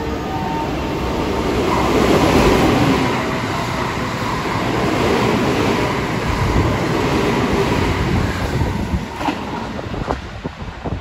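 JR West limited express Haruka electric train passing through a station at speed without stopping: a rush of wheels on rail and air, loudest about two seconds in as the front cars go by. The noise then thins as the last cars pass, with a few sharp clicks of wheels over the rail joints near the end.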